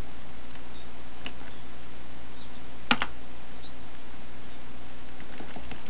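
A single sharp computer-keyboard key click about three seconds in, with a fainter click about a second in, over a steady low hum.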